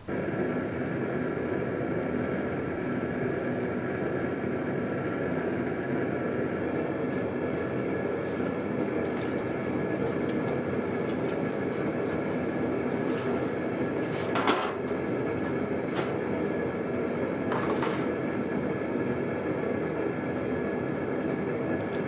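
Steady roar of a running propane forge burner, with two short hisses about 14 and 17 seconds in.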